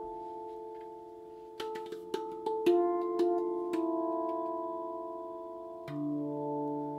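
RAV Moon steel tongue drum in D Integral scale played with the fingertips. Its notes ring on with a lot of sustain, a quick run of struck notes comes about a second and a half in, and a lower note enters near the end.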